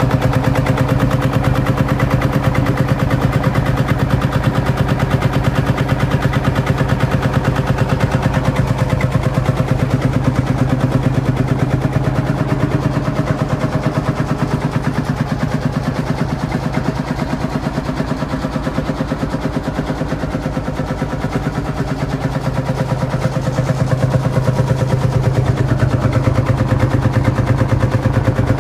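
1948 Field Marshall Series 2 tractor's single-cylinder two-stroke diesel engine running, its exhaust popping in a rapid, steady beat. It is a little quieter through the middle.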